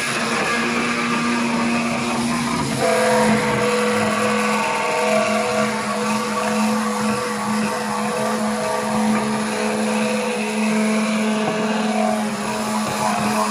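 Handheld immersion blender running continuously in a pot of thick roasted-vegetable soup, a steady motor whine with the churn of the purée as the soup is blended smooth.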